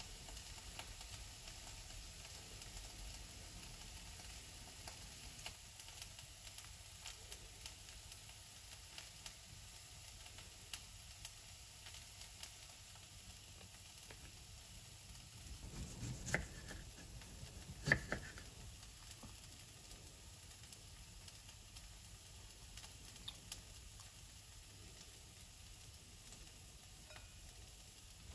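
Faint handling sounds of cutting and peeling a ripe avocado on a wooden chopping board: soft knife and skin scrapes and small clicks, with two louder knocks a little past halfway, about two seconds apart.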